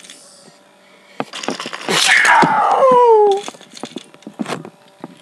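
A voice giving a loud falling scream: a hissing burst that slides into a wail dropping steadily in pitch for about a second and a half before cutting off. Scattered short clicks and knocks come before and after it.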